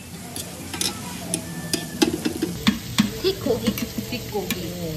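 Pork pieces sizzling on a hot iron griddle plate, a steady hiss, with metal tongs clicking and scraping against the plate as the meat is turned.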